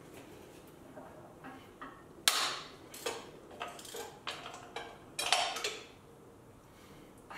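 Hand wrench clinking and clicking against the metal of an engine's mount bracket while working at a hard-to-reach bolt: irregular sharp metallic knocks, a loud one about two seconds in and a cluster of them around five seconds in.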